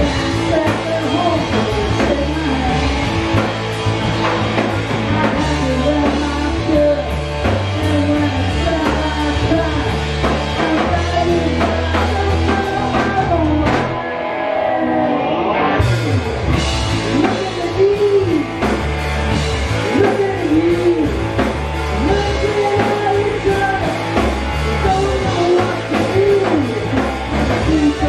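Live rock band playing: a male lead vocal sung over electric guitars and a drum kit. About halfway through, the drums and low end drop out for a couple of seconds, then the full band comes back in.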